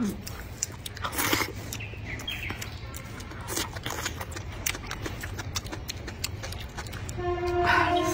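Close-up wet slurping and chewing of rice noodles, with many small clicks and smacks. Near the end a held, steady hummed tone sounds for about a second and a half.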